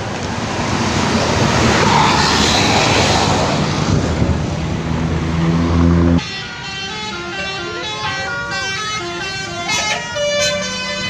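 Bus engine and road noise for about six seconds, then a sudden cut to a bus telolet horn playing a stepped multi-tone melody.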